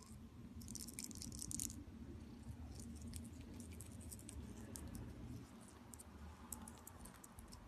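Faint scratching and clicking of a kitten's claws and paws on a plastic ball toy and the fabric of a couch as it bats the toy. A dense run of soft clicks comes about a second in, then scattered clicks, and another quick run near the end.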